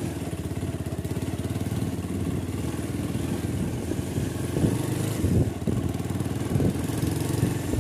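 Motorcycle engine running under way, with rapid, even firing pulses and a brief wavering in pitch about five seconds in.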